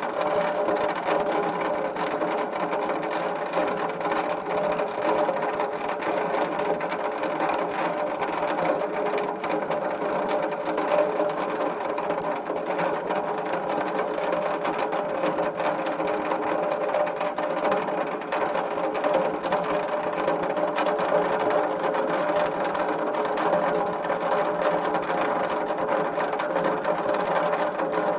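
Water dripping through a rain gutter: a fast, steady patter of drops with a ringing hollow tone.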